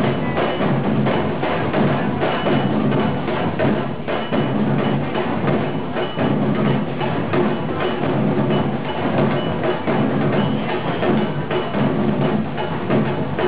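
Music with dense percussion: quick woody clicks and drums over a steady low-pitched backing.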